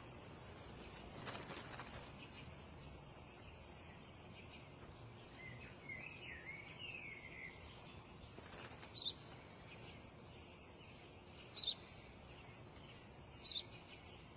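Sparrow chirping faintly: a brief warbling twitter about six seconds in, then single short, sharp chirps every couple of seconds, over a soft outdoor hiss.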